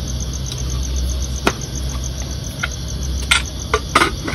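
Crickets chirping in a steady, fast rhythm over a low, even hum. A few sharp knocks and metal clinks come from a knife on a plastic chopping board and a pressure cooker being set down on a small gas-cylinder stove, the loudest near the end.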